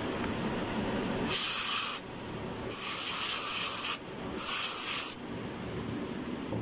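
Aerosol can of foam cleaner spraying onto a computer keyboard in three hissing bursts, the middle one the longest.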